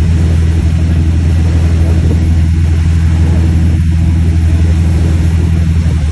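Tow boat's engine running steadily at speed, a loud, even low drone, with a steady rush of wind and churning water over it.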